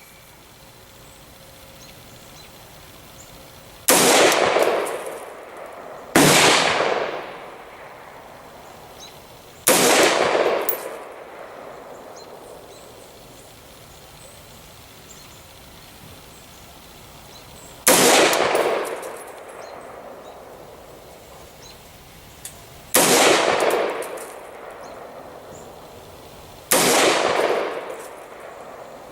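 Six single shots from an AR-15 pistol with an 8.5-inch barrel and birdcage flash hider, fired slowly at uneven intervals. Each sharp crack trails off in about a second of echo.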